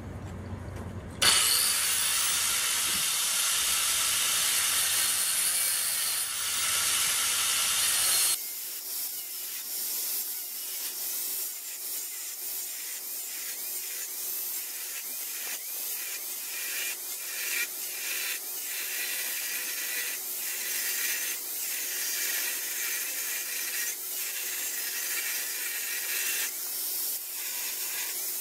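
Angle grinder with a thin cut-off disc, starting about a second in and cutting a slot into the edge of a steel axe head clamped in a vise, the slot that takes an inserted 5160 steel bit. About eight seconds in the sound changes abruptly to a thinner, higher hiss with irregular scratching as the disc works down the cut.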